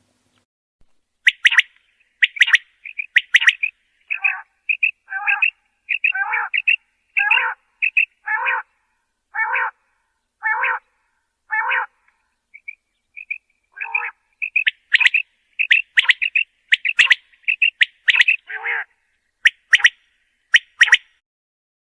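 Common quail calling: sharp, high, clipped notes in quick groups. Through the middle, a harsher, lower call repeats about once a second.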